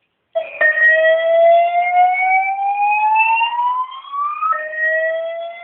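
Fire alarm voice-evacuation speaker sounding a slow whoop: a tone rising steadily for about four seconds, then dropping back and starting its rise again near the end, with a click just after it starts. The panel has been set off again by a smoke detector that keeps re-alarming it.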